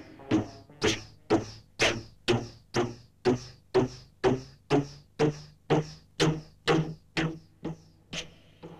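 Synthesized percussive hits in a steady rhythm, about two a second. Each is a sharp strike with a short falling zap above and a low ringing tone beneath.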